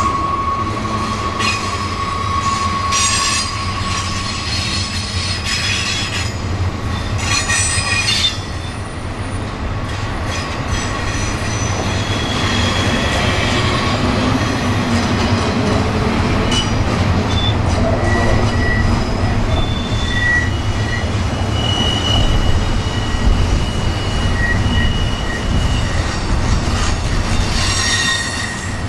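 Train rolling past with a steady low rumble of the cars, its wheels squealing in thin high tones that come and go, with a few brief clanks.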